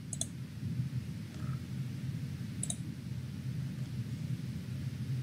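Two short computer-mouse clicks, about two and a half seconds apart, over a steady low hum.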